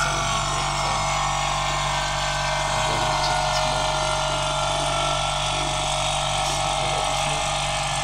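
Oil-sealed refrigeration vacuum pump running steadily, pulling a vacuum on a chest freezer's refrigerant system through the manifold gauge hoses.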